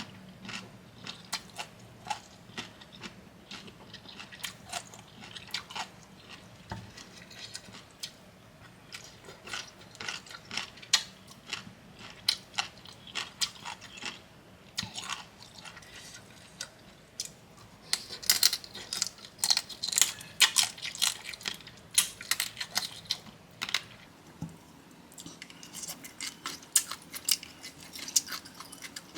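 Close-miked chewing and crunching of Khmer bamboo shoot papaya salad: many quick, irregular crisp crunches, thickest and loudest about two-thirds of the way through.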